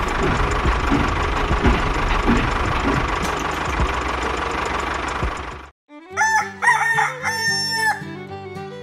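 A tractor engine running steadily, cutting off suddenly about six seconds in; then a rooster crows.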